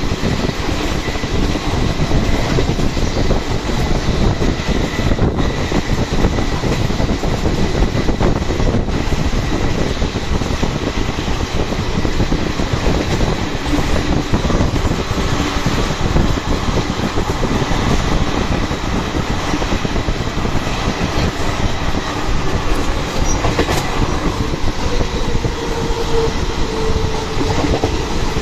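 Passenger express train running at speed, heard at an open coach door: a loud, steady rumble of the coach wheels on the rails.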